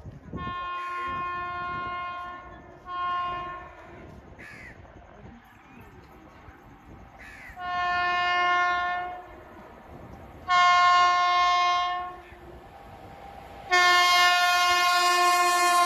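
WAP7 electric locomotive's horn giving five blasts as the train draws near, growing louder blast by blast. The last two are the loudest, and the last runs on past the end.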